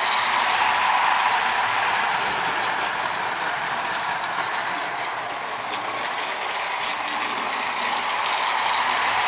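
Marx O-27 toy train locomotive running on three-rail track, its electric motor and gears whirring and its wheels rattling along the rails. The sound grows louder as the engine passes close, about a second in and again near the end.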